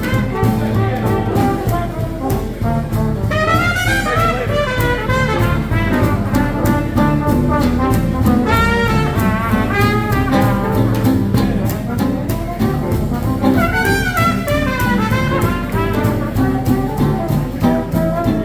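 Live swing jazz band playing an instrumental chorus: a brass horn solos over a steady rhythm section, with quick rising runs about three, eight and thirteen seconds in.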